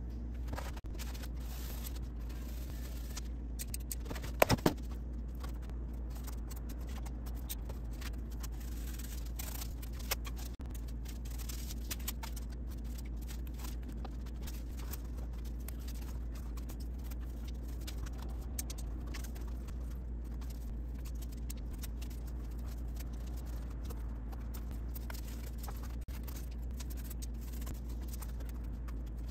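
Rigid foam insulation board being handled and fitted against a log wall: scattered light scrapes and clicks, with a cluster of sharp knocks about four and a half seconds in, over a steady low hum.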